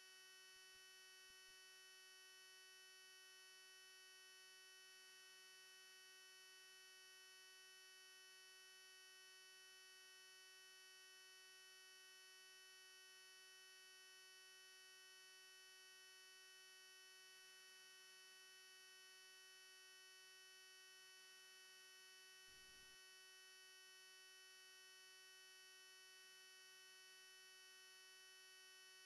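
Near silence: a faint steady electrical hum made of several constant tones, with a faint brief click about three quarters of the way through.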